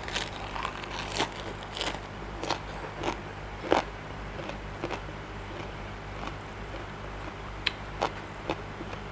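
Close-up mouth sounds of a person chewing a mouthful of Thai seafood papaya salad: short, irregular crunches about once or twice a second, the loudest nearly four seconds in and fewer toward the end.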